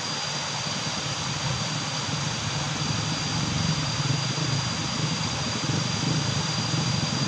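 Fast-flowing shallow river rushing over a ford, a steady rush of water with a thin steady high tone above it.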